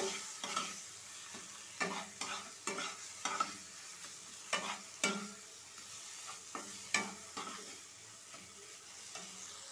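Metal spatula scraping and knocking against a nonstick frying pan as a thick onion-and-spice masala paste is stirred while it sizzles in oil. A steady frying hiss runs under irregular scrapes about once a second, which thin out in the second half.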